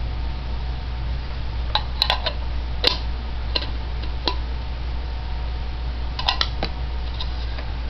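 Plastic toy food and a plastic toy teapot clicking and clacking together as they are handled: about a dozen light, irregular taps, a cluster a couple of seconds in and another near the end, over a steady low hum.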